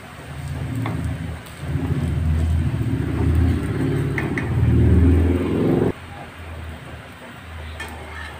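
A low engine-like rumble builds over a few seconds and cuts off suddenly about six seconds in, leaving a fainter low hum.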